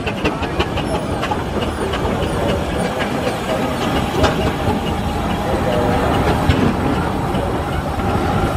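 Aveling & Porter steam roller and a steam crane engine running slowly past in procession: a steady mix of mechanical clanking with many small knocks and a light hiss of steam, over crowd chatter.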